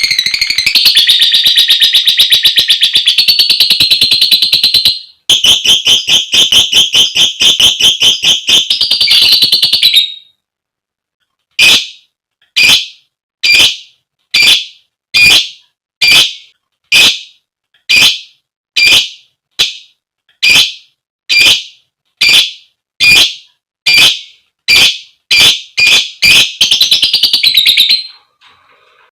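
Lovebird giving a long, rapid, shrill chattering trill (ngekek), then after a short pause a series of single piercing calls about once a second that quicken near the end into another brief chatter.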